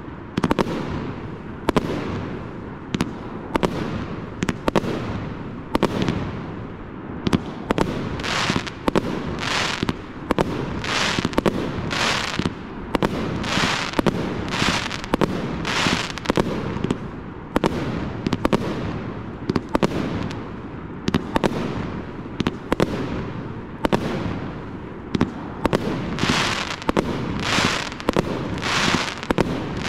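A 30 mm, 49-shot consumer firework cake firing shot after shot, with a sharp bang from each aerial burst roughly once a second. A fizzing crackle from the gold crackling stars fills the gaps between the bangs.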